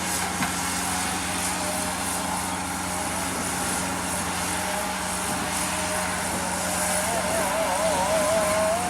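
Diesel engine of heavy construction equipment running steadily. Over the last two seconds a wavering higher tone rises in over it.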